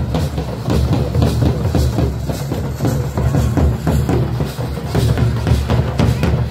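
Dhol and nagara drums playing a loud, fast dance rhythm with a heavy low end.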